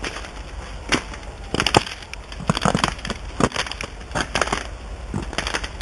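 Footsteps crunching through ice-crusted ground and ice-glazed fallen branches and twigs: a string of irregular sharp crunches and snaps.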